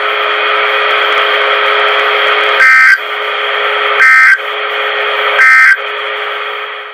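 Weather radio receiving the NOAA Weather Radio broadcast: the three short EAS end-of-message data bursts, shrill warbling tones, sound about 1.4 seconds apart over steady reception static. They mark the end of the Required Weekly Test.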